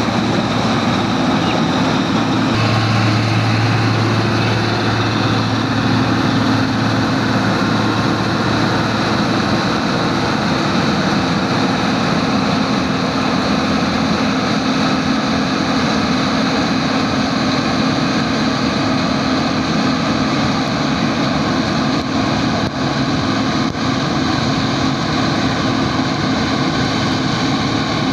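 New Holland 8070 combine harvester running steadily while harvesting rice. Its engine and machinery make a constant hum with a few steady tones, and a deeper hum joins about three seconds in and drops away around ten seconds.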